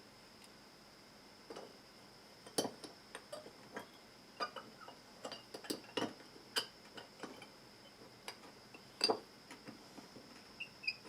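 Scattered small clicks and taps of tools and metal jewellery pieces being handled at a soldering bench, irregular and starting a second or two in, over a faint steady high whine.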